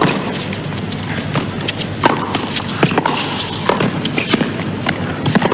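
Tennis rally on a hard court: a string of sharp knocks from racquets striking the ball and the ball bouncing, about every half second to a second, over steady crowd noise from the arena.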